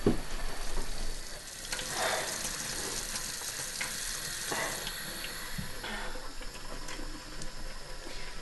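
Water running from a kitchen tap into a sink, with irregular splashes as someone washes under it.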